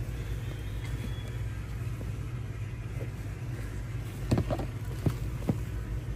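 Steady low rumble, with a few sharp clicks or knocks a little past the middle.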